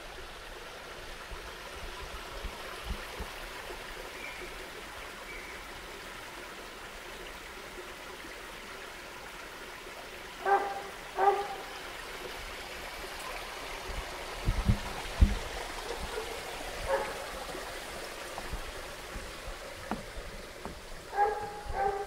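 Steady rushing of a small stream, with a dog barking a few times, twice in quick succession. Two dull low thumps come a little past the middle.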